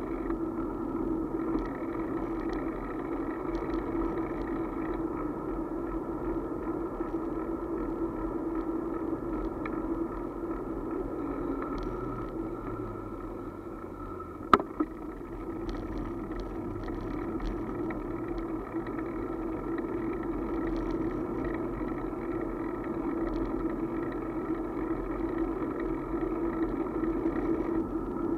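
Steady running hum and road noise of a two-wheeled vehicle riding along asphalt. The noise dips slightly just before halfway, and a single sharp click sounds about halfway through.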